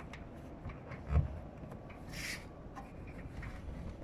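A hand rubbing and pressing foil-faced sealing tape down onto a corrugated polycarbonate roof sheet, with small scattered ticks. There is a low knock about a second in and a short hiss a little after two seconds.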